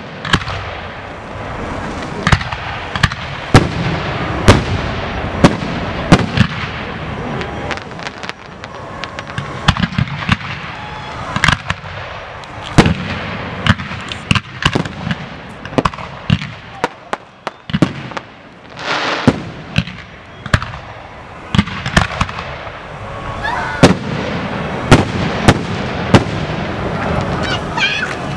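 Fireworks display: aerial shells bursting in a long, irregular run of sharp bangs, at times several a second.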